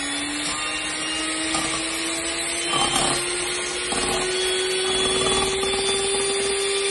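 Handheld electric mixer running steadily, its beaters whipping two eggs in a stainless steel bowl; the motor's hum creeps slowly higher in pitch.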